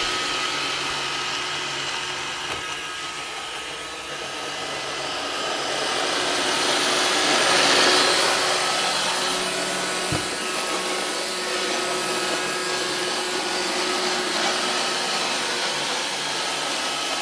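iRobot Roomba 560 robot vacuum running on the floor: a steady motor whine that grows louder to a peak about eight seconds in and then eases back. A single short knock comes about ten seconds in.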